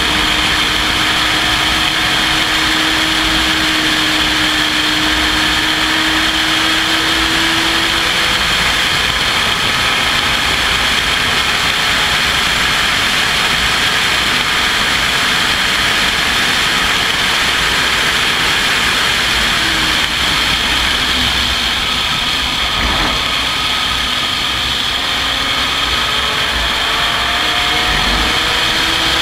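Open-cockpit race car's engine running hard at speed, under a loud steady rush of wind and road noise. The engine note climbs slowly in the first several seconds and again near the end.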